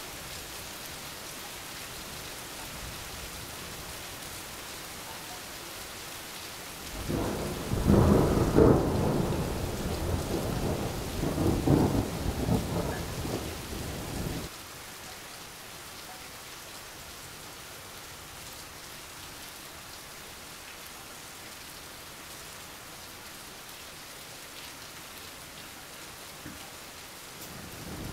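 Steady rain hissing, with a long thunder rumble setting in about a quarter of the way through. The rumble peaks twice over some seven seconds and then stops abruptly, and a second rumble begins at the very end.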